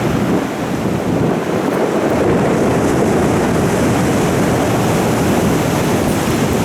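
Stormy sea surf with strong wind buffeting the microphone: a steady, dense rush with no distinct breaks.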